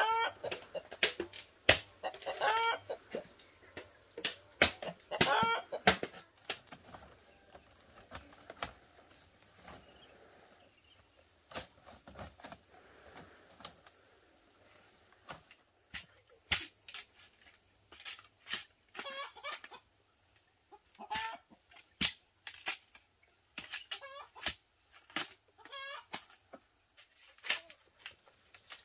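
Chickens clucking, with short calls in bouts near the start and again about two-thirds of the way through, over a steady high insect drone. Sharp clicks and knocks come and go throughout.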